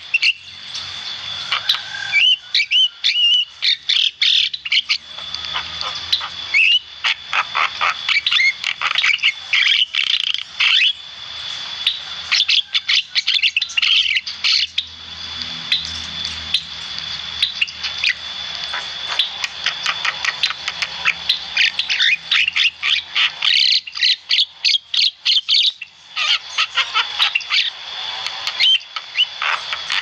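Javan myna chattering and singing vigorously: dense runs of rapid clicks, whistles and harsh chirps with short pauses between them. A thin steady high tone runs underneath.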